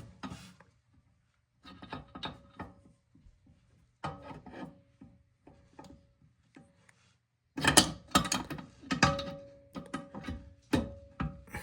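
A tool scraping and clicking against a toilet's tank-to-bowl bolt as it is worked loose: short bursts of rubbing and clinks, growing louder and busier about two-thirds of the way through, some with a brief metallic ring.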